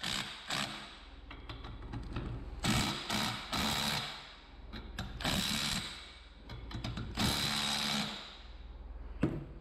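Cordless power tool running in three bursts of about a second each, driving down the centre screw of a bridge-style press bar to compress the brake piston of a torque hub final drive. A sharp click near the end.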